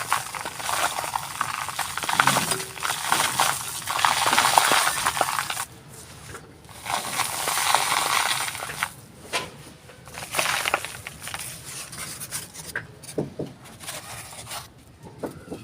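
Dry, crumbly texture pieces being crushed and crumbled by hand. There are long bouts of dense crunching in the first half, then shorter separate crunches and crackles with pauses between them.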